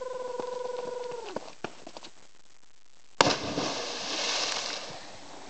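A person's long held yell during a cliff jump. About three seconds in, the jumper hits the lake with a sharp, loud splash, and spray hisses for about two seconds after it.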